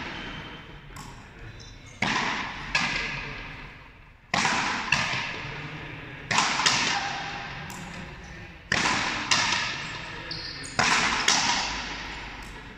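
Frontenis rally: a rubber ball struck with rackets and hitting the frontón's front wall, sharp cracks in pairs about half a second apart, a pair roughly every two seconds, each ringing on in the hall's long echo.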